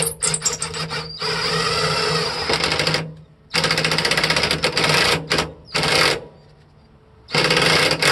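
Ryobi cordless impact driver hammering a nut tight through a socket and extension, in a series of short and long bursts with pauses between, the longest about two seconds.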